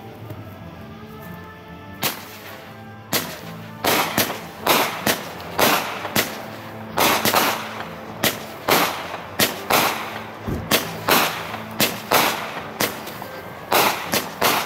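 Winda Titanium Beast 200-gram, 25-shot firework cake firing: a first report about two seconds in, another a second later, then a rapid string of shots about two a second, each a sharp bang with a short ringing tail.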